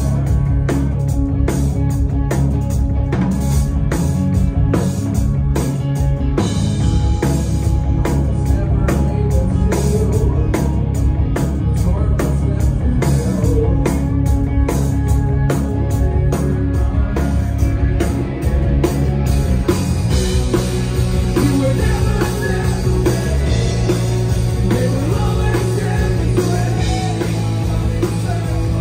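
A rock band playing live with electric guitar, bass guitar and a drum kit keeping a steady beat, and a voice singing over them.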